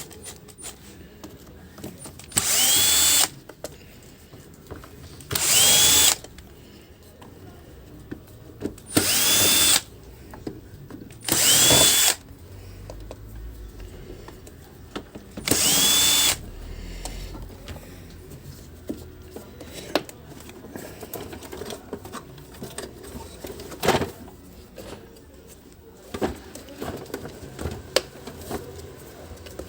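Electric screwdriver running in five short bursts of about a second each, unscrewing the housing bolts of a vacuum cleaner, followed by light clicks and a sharp knock from handling the parts.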